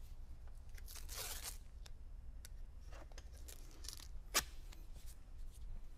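Double-sided tape being pulled off its roll, with a brief ripping sound about a second in and lighter rustling after. A single sharp click comes a little past four seconds in.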